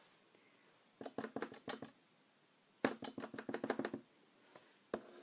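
A small stamp tapped quickly and repeatedly on an ink pad, in two runs of about a second each at roughly eight taps a second, then a single tap near the end.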